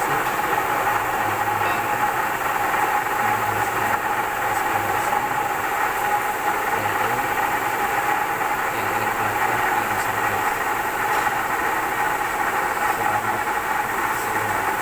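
Kiheung Machinery Works KMU-1.5 S milling machine running steadily while face-milling an aluminium block, with a steady whine.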